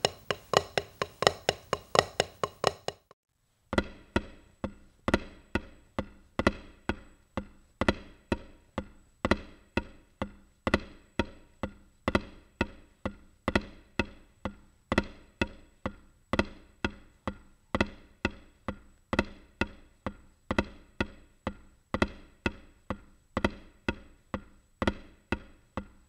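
Drumsticks striking a practice pad, playing the Swiss Army triplet rudiment slowly and evenly: a repeating three-note figure that opens with a flam. There is a short break about three seconds in, then the pattern runs on steadily.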